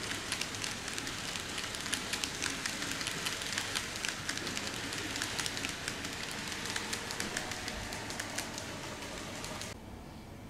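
N-gauge model passenger coaches rolling along the track: a light, fast clatter of small metal wheels clicking over the rail joints, with a steady hiss under the clicks. It cuts off suddenly near the end.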